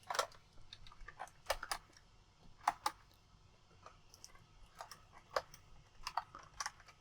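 Irregular small clicks and snaps as the parts of a Soul of Chogokin GX-104 GaoFighGar die-cast and plastic figure are pried open and shifted into place during its transformation.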